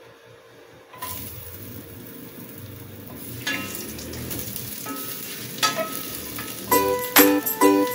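Sliced ginger sizzling in hot oil in a stainless steel pot, the sizzle starting suddenly about a second in as the ginger goes in, with light scraping of a wooden spatula stirring it. Near the end, background music with a rhythmic shaker rattle comes in over it.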